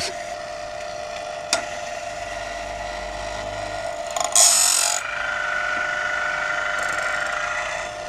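Woodland Mills bandsaw blade sharpener running with a steady motor hum. There is one click about a second and a half in. Just past four seconds the grinding wheel grinds a tooth with a brief harsh hiss, then a higher steady whine follows for about three seconds as the mechanism cycles. With its feed knob loosened, the sharpener pushes the blade a little too far, so the wheel only barely catches the teeth.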